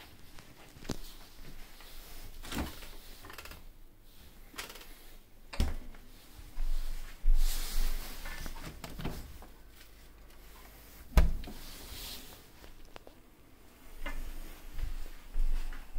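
Handling noise from a handheld phone camera being carried around: scattered knocks and thumps, the loudest about eleven seconds in, with rubbing and rustling between them and low rumbles.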